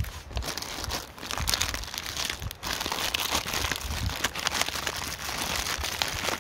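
Plastic MRE ration packets crinkling and rustling as they are handled, a dense, continuous run of small crackles.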